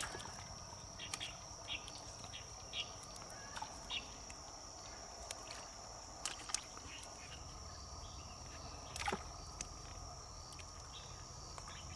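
A steady high drone of crickets or other insects, with scattered light taps and flaps as fish are handled and sorted. The loudest knock comes about nine seconds in.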